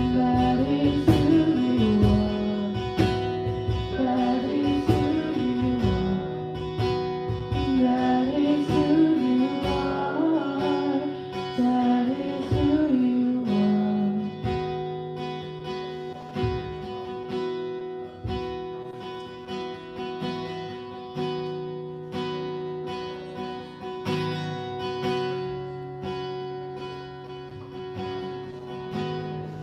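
A woman singing with a strummed acoustic guitar; her voice stops about fourteen seconds in and the guitar carries on alone, growing gradually softer.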